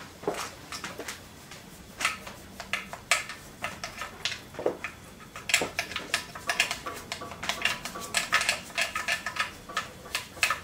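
Metal hand tool clicking and scraping against the inside of a Bernina 217 industrial sewing machine's metal arm casting, scattered at first, then a quick run of clinks about halfway through.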